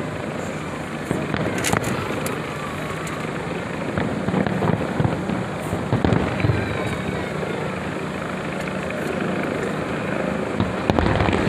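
Fireworks display going off in the distance: a continuous rumble of booms, with sharper bangs standing out a few times and the loudest near the end.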